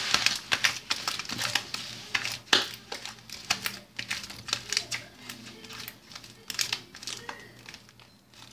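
Fluffy slime made with foaming hand soap being kneaded by hand, giving rapid sharp clicks and crackles that thin out over the second half.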